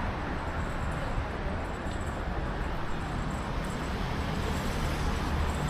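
Steady road traffic noise: a constant low rumble of passing vehicles with no single event standing out.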